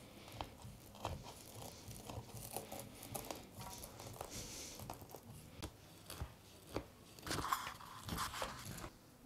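Kitchen knife cutting through a tray of crisp baked kadaif, the dry shredded pastry strands crunching and crackling under the blade. The pastry is still firm, fresh from the oven. The crunching is faint, with a louder stretch about seven seconds in.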